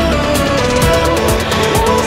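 Background music: a stepping melody over a steady beat.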